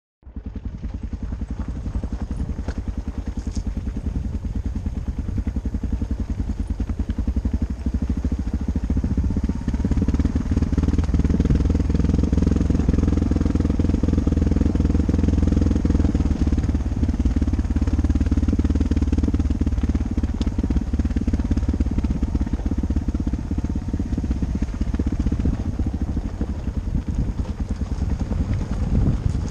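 Dual-sport motorcycle engine running steadily under way, with a rapid firing pulse. It grows louder from about ten seconds in, then eases back about six seconds later.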